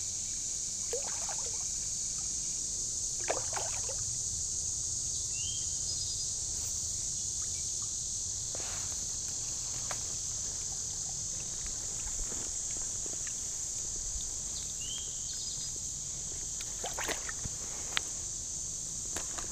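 Creek water sloshing, with scattered small splashes, under a steady high-pitched insect chorus.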